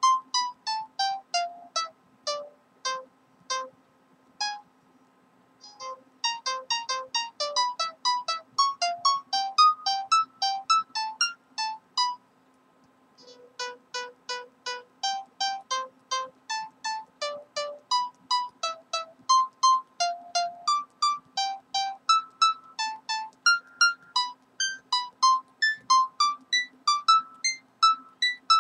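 Background music: a simple tune of short, chiming single notes, about two to three a second, with two brief pauses.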